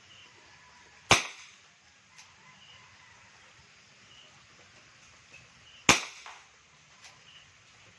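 Two shots from a CO2-powered WinGun 708 airsoft revolver, about five seconds apart, each a sharp crack with a short decaying tail.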